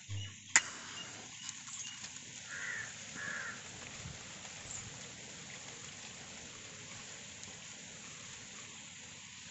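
A sharp click about half a second in, then two short bird calls in quick succession around three seconds in, over a steady hiss.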